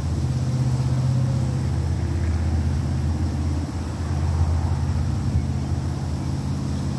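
Honeybee swarm buzzing, a steady loud drone from a cluster being handled at close range.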